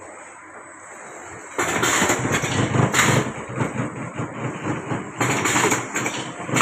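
Collar-type vertical form-fill-seal packing machine running, filling and sealing 1 kg washing-powder pouches, with a dense mechanical clatter that gets much louder about one and a half seconds in.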